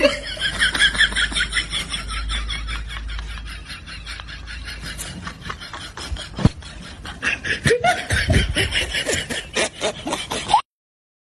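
A person laughing in long runs of quick, breathy giggles, with a single sharp knock about six and a half seconds in.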